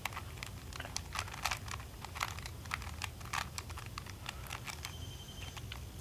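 A 3x3 Rubik's Cube being turned by hand through an algorithm: a run of faint, irregular plastic clicks, several a second, as the layers are twisted in quick succession.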